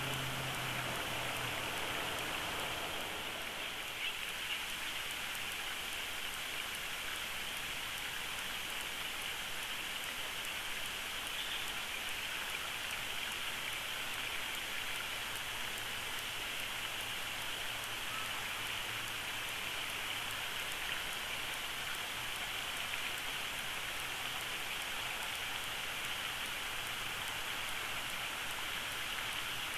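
Steady outdoor hiss with no clear pitch, with a few faint ticks. A low hum fades out in the first couple of seconds.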